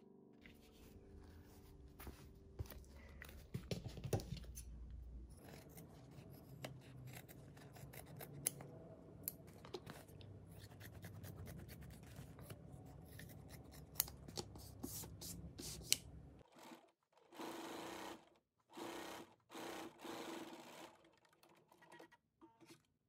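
Scissors cutting through layered quilted cotton fabric, with sharp clicks of the blades at irregular intervals and rustling of the fabric as it is handled.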